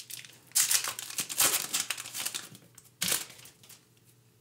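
Foil trading-card pack wrapper being torn open and crinkled by hand: dense crinkling for about two seconds, one more short rustle about three seconds in, then quiet.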